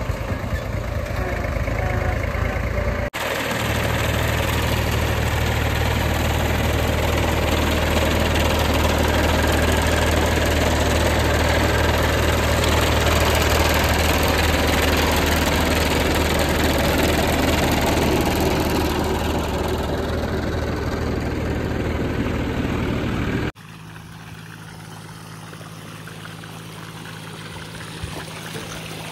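Mahindra 265 DI tractor's diesel engine running steadily while driving a PTO-mounted water pump. About three-quarters of the way in, the sound cuts to muddy water gushing from the pump's outlet hose into a flooded field, with the engine hum fainter.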